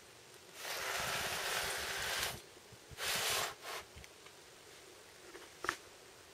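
Heavy steel hydraulic crimping head being turned and shifted on a tabletop: a scraping rub that lasts about two seconds, two shorter rubs, then a single light click near the end.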